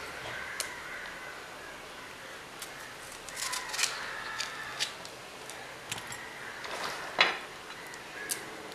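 Green chillies being slit lengthwise by hand: a series of small snaps and clicks as the pods split, with a sharper knock about seven seconds in.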